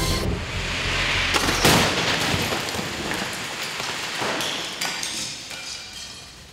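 Frontal car-to-car crash test of a 1998 Toyota Corolla into a 2015 Toyota Corolla. A rushing noise builds, then a loud crash of crumpling metal about one and a half seconds in, followed by scattered debris clattering and tinkling that slowly fades.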